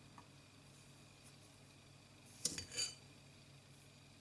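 A spoon clinking twice against a jar about halfway through, as sugar is spooned over chopped onion; quiet before that.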